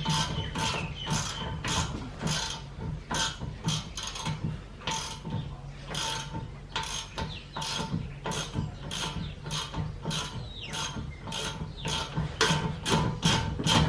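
Hand ratchet wrench clicking in quick runs of several clicks a second, with short pauses, as it turns nuts and bolts on the rear suspension.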